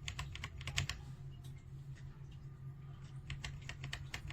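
Keystrokes on a KOORUI full-size mechanical keyboard: a quick run of key presses, a stretch of only a few faint taps, then another quick run near the end. Under the keys is a low steady hum.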